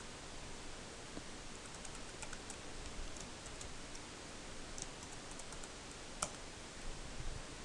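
Faint typing on a computer keyboard, scattered keystrokes over a steady hiss, with one louder click about six seconds in.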